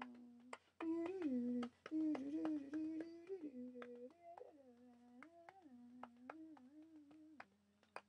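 A person humming a tune without words, the pitch stepping between a few held notes, with short sharp clicks or taps scattered through it. The humming is strongest in the first couple of seconds and grows faint after about four seconds.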